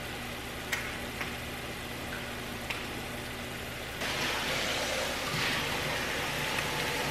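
Diced onion, carrot and celery sizzling in butter and olive oil in a large pot over medium heat, a steady hiss with a few light pops. It grows somewhat louder about four seconds in, as the vegetables sweat toward translucent.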